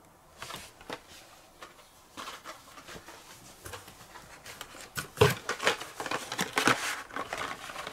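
Carded Hot Wheels cars being handled: their plastic blisters and cardboard backing cards tap, click and rustle against each other. The handling is sparse at first and grows busier about five seconds in.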